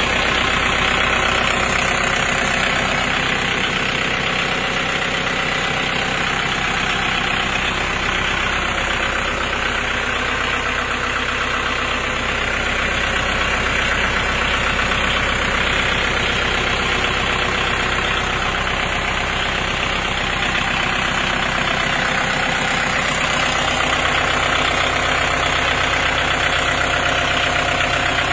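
Tractor diesel engine idling steadily, heard close up.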